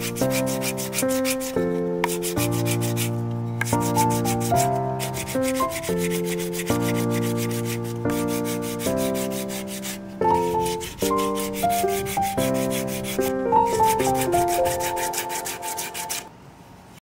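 Hand sanding stick (sandpaper stapled to a wooden slat) rubbed fast back and forth on a carved wooden walking-stick handle: a quick, even scratching rhythm of several strokes a second, with held musical notes changing pitch beneath it.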